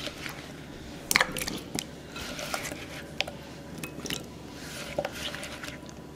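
Cubed raw potatoes being scooped off a wooden cutting board by hand and dropped into a glass bowl of water: scattered light knocks and taps, with soft splashes.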